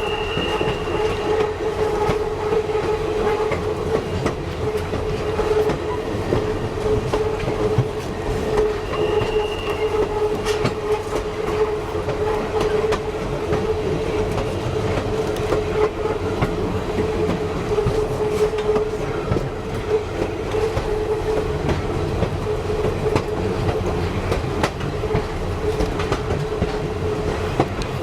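Passenger train rolling along the track, heard from the open rear platform of the last car: a steady rumble of wheels on rail with a constant low hum and scattered clicks. A brief high tone sounds about nine seconds in.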